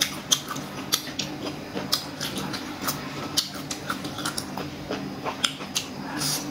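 Close-miked chewing of boiled pork intestine and herbs: irregular crunches and wet mouth clicks, several a second, over a steady low hum.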